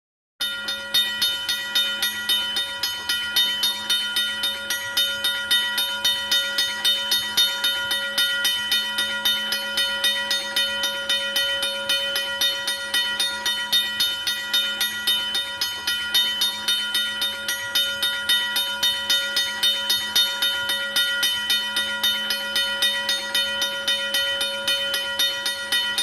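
Train running: an even rhythmic clatter, about three beats a second, over a steady hum of several held tones. It starts abruptly.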